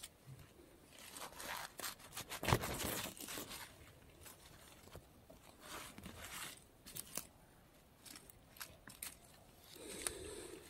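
Dry leaf litter and twigs rustling and crackling in short bursts as a knife cuts an orange-cap bolete at its base and the hand works it free, with a few sharp snaps, the loudest about two and a half seconds in.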